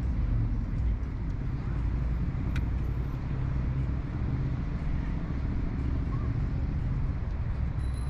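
Steady low rumble of city road traffic, vehicles running past.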